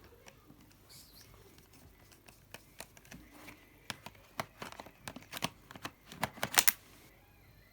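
A run of sharp clicks and taps, growing denser and louder and ending in a quick cluster about six and a half seconds in.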